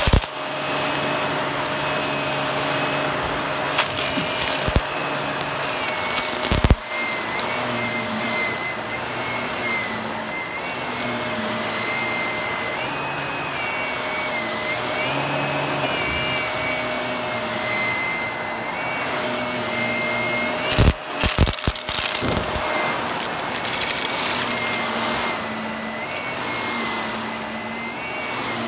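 Bagless upright vacuum cleaner running over carpet, its motor whining steadily, with sharp cracks and rattles as the brushroll crunches and sucks up small hard debris, in a dense cluster about three-quarters of the way through.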